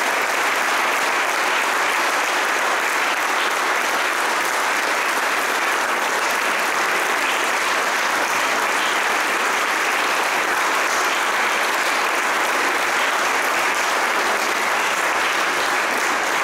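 Audience applauding steadily in a large hall, many hands clapping together.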